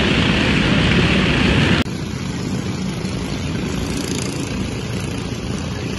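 Stoxkart engines running as the karts race round the oval track, a steady mass of engine noise. About two seconds in it drops abruptly to a quieter, more distant engine noise.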